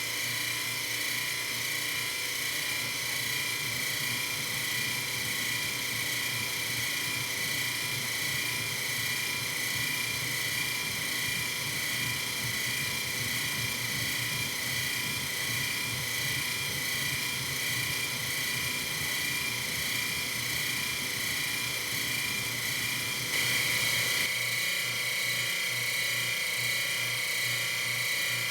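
A metalworking machine tool running steadily with a high whine while machining a steel nut. About 24 seconds in it gets a little louder and the pitch changes slightly, as when the cut or speed changes.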